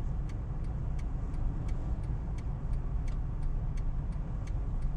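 Car turn-signal indicator ticking steadily, about three clicks a second, over the low engine and road rumble inside a Honda Fit's cabin.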